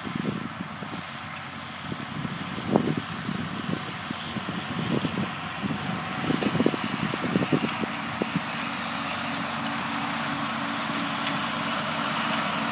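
John Deere tractor working in the field, its engine running steadily and growing gradually louder as it draws nearer, with irregular low thumps over it.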